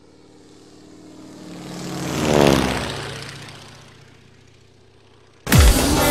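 Propeller airplane passing by: the engine swells to a peak about two and a half seconds in, then drops in pitch and fades away. Music starts abruptly and loudly near the end.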